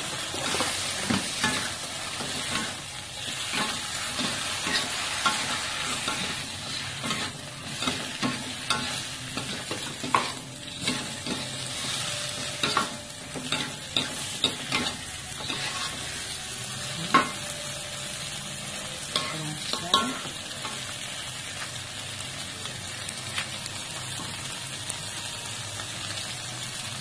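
Wontons, bean sprouts and greens sizzling in a hot wok while a metal spatula stir-fries them, clacking and scraping against the pan. The clatter stops about twenty seconds in, leaving only the steady sizzle.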